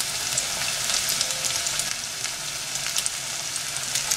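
Chicken bonda batter balls deep-frying in hot oil in a pan: a steady sizzle with frequent small crackles.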